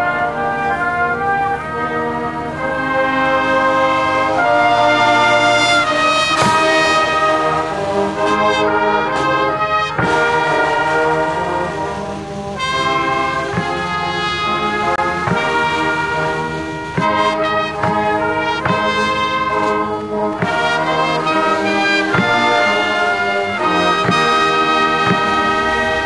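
Brass band music: slow, long-held chords that change every second or two, with a few single drum strokes.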